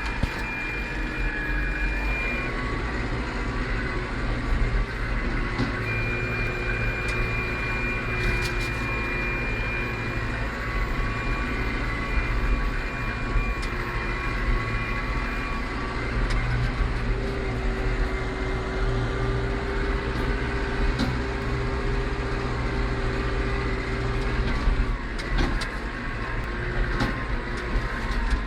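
Farm tractor engine running steadily: a deep, continuous rumble with a steady whine over it and a few light clicks.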